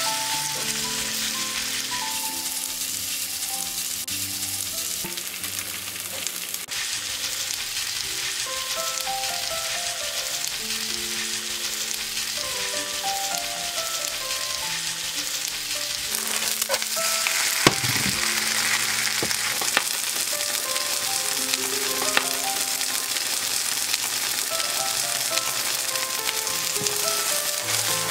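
Cabbage-and-radish pancake batter sizzling steadily as it fries in oil in a non-stick frying pan, with a few sharp clicks about two-thirds of the way through. Light background music plays over it.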